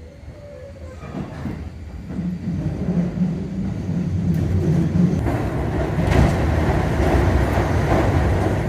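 Hanshin Railway electric train running, a low rumble that builds over the first few seconds and then holds, with a low hum for a few seconds in the middle.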